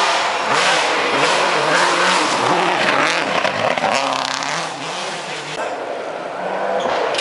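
Rally car engine revving hard and easing off several times as it drives a gravel corner, over a hiss of tyres and gravel. The sound drops abruptly to a quieter level about five and a half seconds in.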